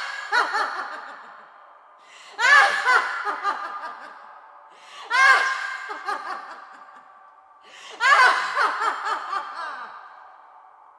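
A woman laughing loudly in four long bursts, about every three seconds, each starting at full strength and trailing off.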